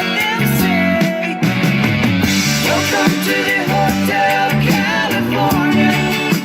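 Rock song with singing and guitar played through an Altec Lansing Boom Jacket 2 portable speaker.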